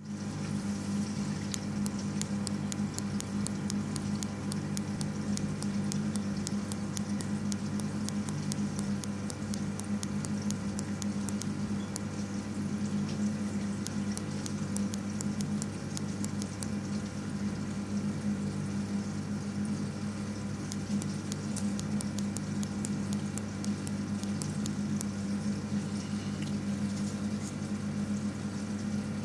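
Aquarium running: a steady low hum from its pump with water trickling and bubbling. For two long stretches, quick light ticks come several times a second.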